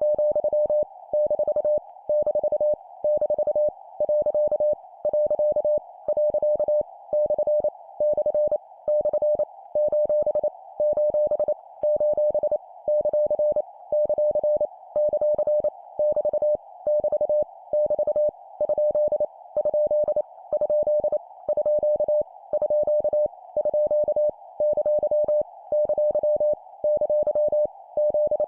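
Morse code (CW) sent at 25 words per minute: a single steady tone near 600 Hz keyed into rapid dots and dashes, in short groups separated by brief gaps. It is practice copy of punctuation marks, each sent three times, over a steady band of filtered hiss like a receiver's passband.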